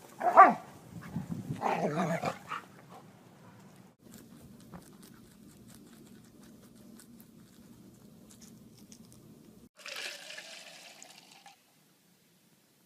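A dog vocalizing: a loud cry that falls steeply in pitch just after the start, with more cries over the next two seconds. A low steady drone follows for several seconds, then a short higher, slightly rising sound near the end.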